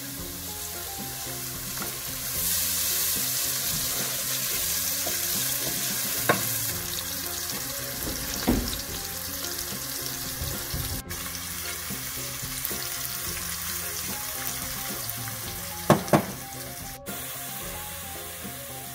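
Sliced red onions sizzling in oil in a nonstick pot, the hiss swelling a couple of seconds in after more oil is poured over them. A wooden spatula stirs and knocks against the pot a few times, twice in quick succession near the end.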